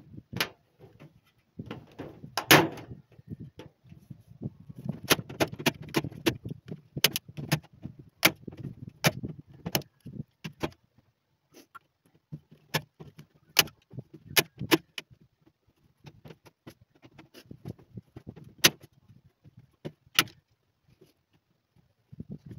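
A hand-held spring-loaded fastening tool snapping again and again at irregular intervals as it drives fasteners along the edge of a new glass pane set in a wooden frame, with handling knocks and rumble underneath. The snaps come thick for the first ten seconds or so, the loudest about two and a half seconds in, then grow sparse.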